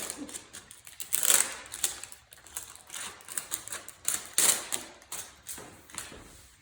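Plastic toy packaging crinkling and crackling as it is handled and pulled open, an irregular run of quick clicks and rustles with louder crackles about a second in and again around four and a half seconds.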